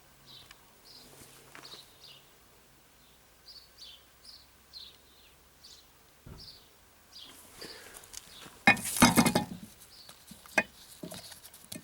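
A small bird chirping repeatedly in the background, short high falling notes, while metal compressor parts are handled with occasional knocks. About nine seconds in comes a loud burst of metal clattering and clinking as the parts are worked loose.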